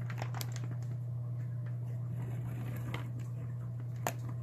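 Plastic fish-shipping bag full of water crinkling and squishing as it is handled, with scattered small clicks and one sharper click about four seconds in. A steady low hum runs underneath.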